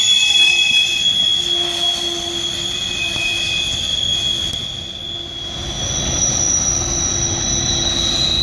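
Freight train cars rolling past with their steel wheels squealing against the rails: several steady high-pitched squeals over a low rumble, shifting to a different pitch about five seconds in.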